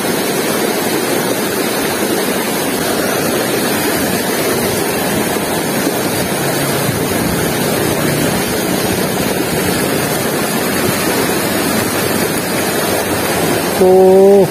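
Swift, shallow river water rushing steadily over rocks, a constant loud wash of noise.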